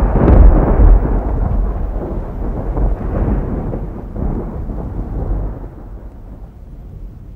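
Rolling thunder rumble, loud at first and slowly dying away, fading out near the end.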